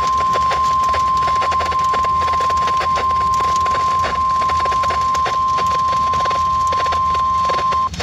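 NOAA Weather Radio's 1050 Hz warning alarm tone, one long steady beep through a weather radio's small speaker over crackling static, cutting off near the end. It is the alert signal that announces a warning message, here a severe thunderstorm warning.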